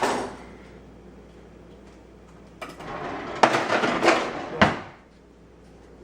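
A sharp bang at the start that rings briefly, then about two and a half seconds of clattering and clinking with several sharp knocks, as silverware and dishes are handled while a dishwasher is unloaded.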